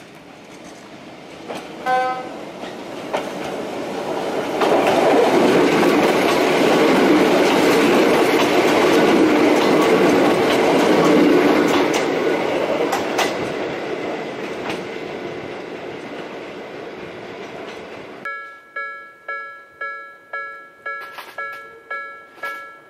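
A Hakone Tozan Railway electric train gives a short horn blast about two seconds in, then runs past with wheel and motor noise swelling and fading. After a sudden change near the end, a Japanese level-crossing warning bell rings, an even repeated ding about twice a second.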